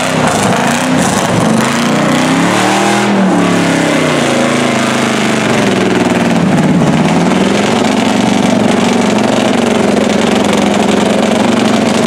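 Lifted Chevy mud truck's engine running wide open as it churns through a deep mud hole. The pitch surges up and down, dips about seven seconds in, then climbs and holds high and steady.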